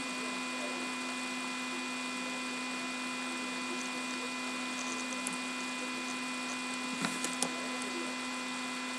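Steady electrical hum: a low drone with several thin, steady higher tones over faint hiss. A few faint clicks about seven seconds in.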